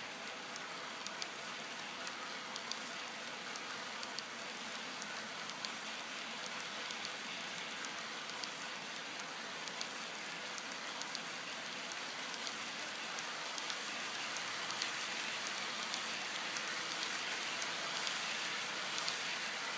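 Model train rolling past on its track: a steady hiss of wheels on the rails, with scattered light clicks, getting a little louder in the second half.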